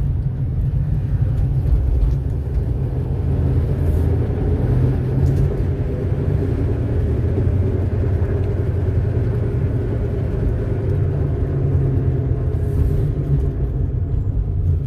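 2006 Chevrolet Impala SS on the move, with a steady low grinding rumble from a failing wheel hub assembly (worn hub bearing) mixed into the road noise.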